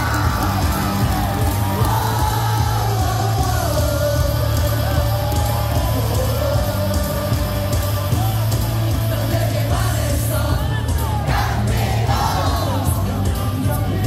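Baseball stadium crowd singing a cheer song along with loud amplified music that has a steady bass, with yells mixed in. There are a few sharp hits about ten to twelve seconds in.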